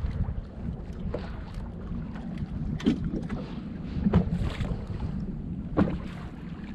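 Fishing boat's motor running steadily as a low rumble, with wind buffeting the microphone and a few sharp knocks about three, four and six seconds in.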